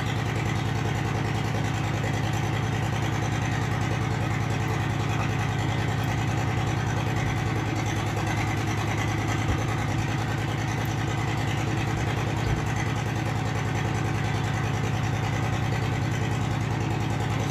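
An engine running steadily at idle, an even low hum that does not change, with a faint click or two.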